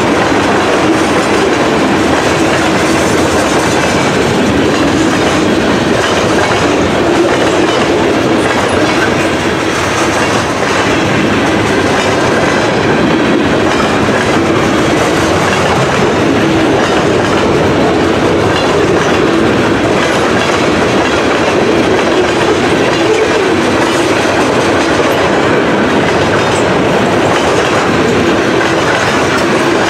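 Freight train of covered hopper cars rolling past close by: steel wheels running over the rails with a steady, loud rumble and rattle that does not let up.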